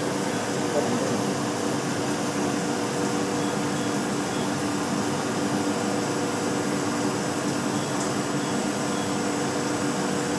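CNC milling machine running a diamond slitting saw slowly through brittle ceramic, with coolant spraying onto the cut: a steady mechanical noise and coolant hiss with a few steady low tones, unchanging throughout.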